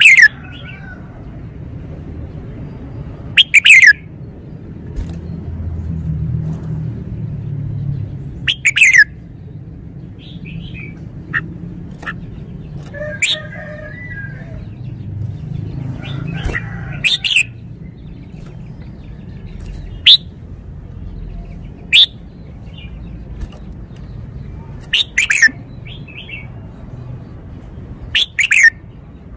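Red-whiskered bulbul singing: short, sharp phrases of quick falling notes, about eight in all, spaced a few seconds apart, with softer chirps in between.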